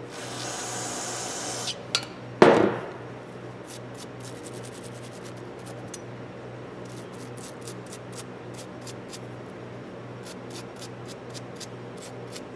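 A short hiss, then a brief sharp burst, followed by quick runs of light metallic clicking as small ratchet parts are handled and worked on the bench. A steady low hum runs underneath.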